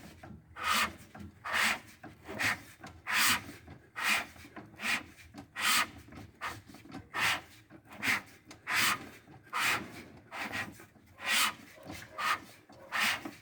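A hand tool worked in repeated rasping strokes, a little more than one a second, each stroke short and evenly spaced.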